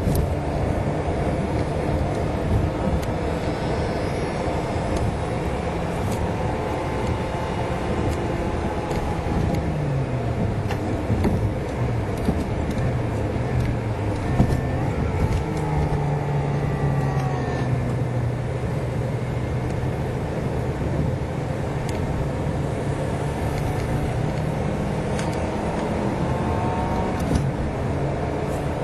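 A car's engine and tyre noise heard from inside the cabin while driving. The engine note drops about ten seconds in, rises a little a few seconds later and then holds steady.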